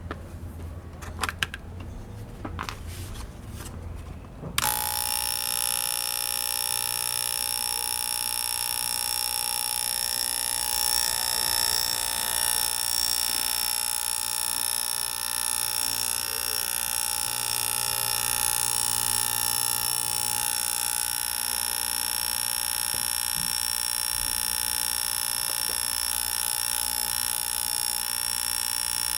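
Electric air-mattress pump switched on about four and a half seconds in after a few handling clicks, then running with a steady high buzz as it is test-run after repair to see if it blows air.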